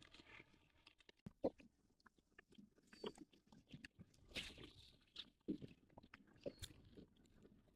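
Near silence broken by faint, irregular small clicks and light knocks.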